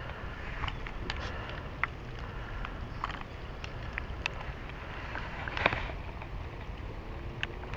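Steady wind rumble on the microphone, with a few light clicks scattered through.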